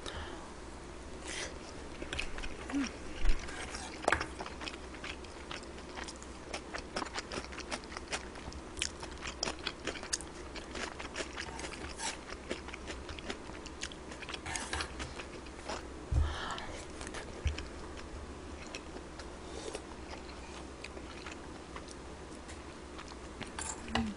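A person chewing and biting food close to the microphone, a run of small wet and crunchy clicks, with a couple of louder knocks.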